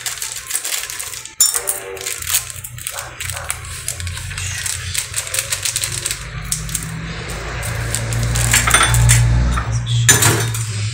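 Plastic sachets of grated parmesan being torn open and emptied, giving crinkling and sharp clicks. A low hum underneath grows louder in the second half.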